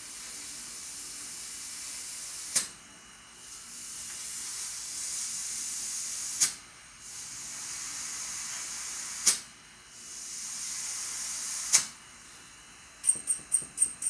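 Compressed air hissing from a tube of a running old refrigerator compressor held at a fingertip. It builds for a few seconds and ends in a sharp puff four times, about every three seconds. Near the end come quick light metallic clicks.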